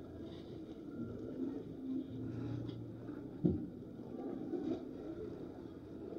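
Steady low rumble of outdoor background noise, with one short knock about three and a half seconds in.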